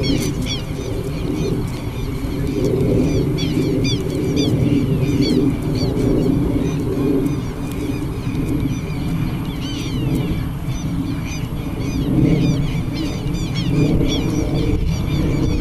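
Many small birds calling at once, quick overlapping chirps all through, over a steady low rumble.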